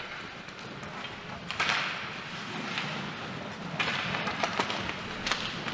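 Ice hockey play on the rink: two bursts of scraping hiss from skates, about a second and a half in and again near four seconds, with several sharp clacks of sticks and puck in the last two seconds.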